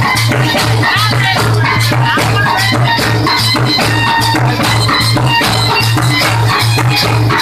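Live drum band playing a loud, fast, steady beat on bass drums and other percussion.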